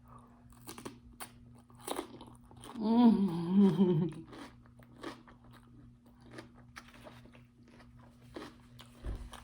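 Close-up mouth sounds of eating a big bite of cucumber, sausage and rice: crunching and wet chewing clicks throughout. About three seconds in comes a longer wavering hummed 'mmm'.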